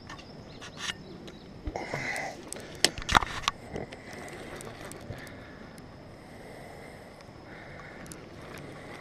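Several knocks and clatters of a fishing rod being handled in a small boat, then a baitcasting reel being wound in with a faint steady whir.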